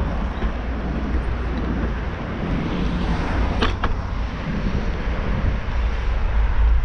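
Wind buffeting the microphone during a bicycle ride, over the steady rumble and hiss of bicycle tyres rolling on cracked asphalt. Two sharp clicks come close together a little past the middle.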